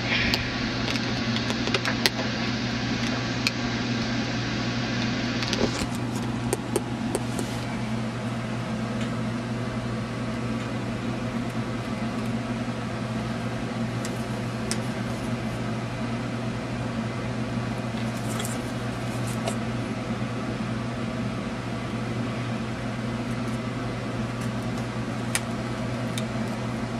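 A steady machine hum with a few light clicks and taps scattered through it.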